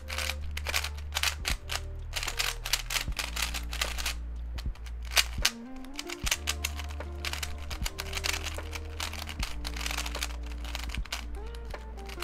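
Rapid plastic clicking and clacking of a MoYu MF3RS, a non-magnetic 3x3 speed cube, as its layers are turned fast in the hands. Background music plays underneath.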